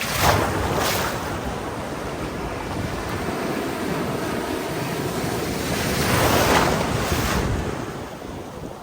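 Ocean surf breaking on a sandy beach in the swell after a typhoon: a wave crashes just after the start and a longer one builds and breaks around six seconds in. Wind buffets the microphone throughout.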